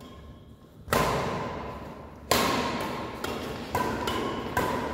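Badminton rackets striking a shuttlecock in a rally, each hit echoing in a large hall. Two loud hits come about a second and a half apart, then a run of quicker, lighter hits.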